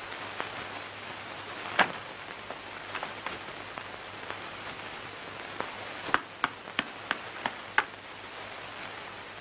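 Steady hiss of an old film soundtrack. Over it come sharp slaps of flatbread dough being worked by hand: one about two seconds in, then a run of six about three a second near the end.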